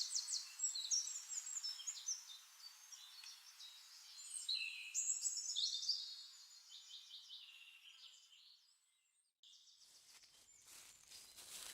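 Nightingale singing: quick, varied phrases of rapidly repeated high notes, in bursts that fade out about eight seconds in. After a brief gap, a crackling rustle starts near the end.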